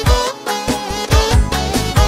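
Instrumental section of a Bulgarian pop-folk song: a lead melody over a steady, driving drum beat.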